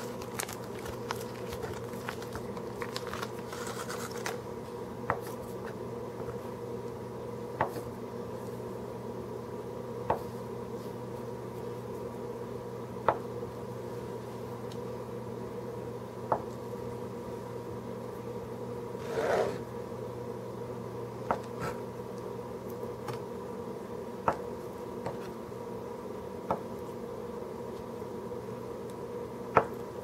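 Knife cutting a block of processed cheese on a plastic cutting board: a sharp tap each time the blade meets the board, about every two to three seconds, over a steady hum. Foil wrapper crinkling faintly in the first few seconds.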